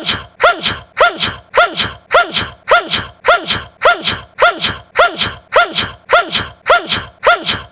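A man's short, high sneeze looped over and over, about three times a second. Each is a quick squeaky vocal onset falling in pitch, with a breathy hiss.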